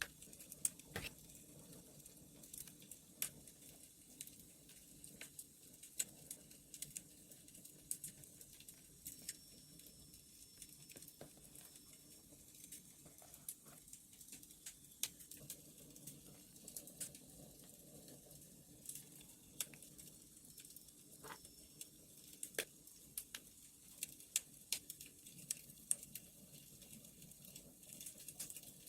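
Wood fire crackling: irregular sharp pops and snaps, a few a second, over a faint steady low hiss.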